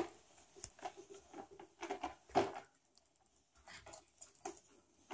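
A small child's faint, scattered vocal sounds mixed with soft handling noises of a plastic toy pram, with one short louder sound about two and a half seconds in.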